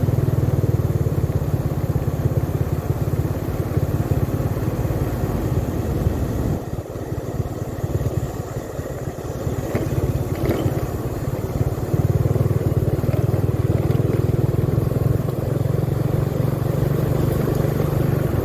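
Motorcycle engine running steadily while riding. The engine goes quieter for a few seconds in the middle, then picks up again about twelve seconds in.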